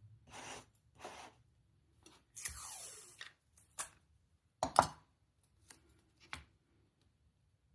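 Two short scraping strokes, then a longer tearing or ripping sound about two and a half seconds in. After it come several sharp clicks and knocks, the loudest a double click near five seconds in.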